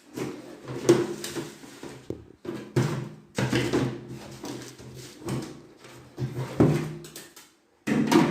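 Irregular clattering and scraping of plastic washing-machine parts being handled, in about eight separate bursts, while a new wash timer is fitted into a semi-automatic washing machine.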